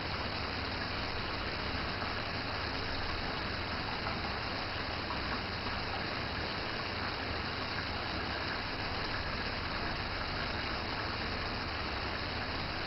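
Washing machine running with a steady rush of water over a low hum.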